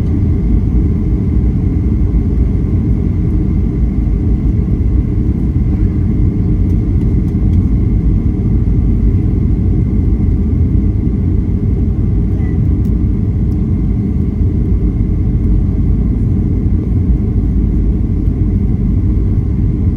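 Steady low roar of engine and airflow noise inside the cabin of a Boeing 737-800/900 airliner on approach, with a faint steady high tone over it.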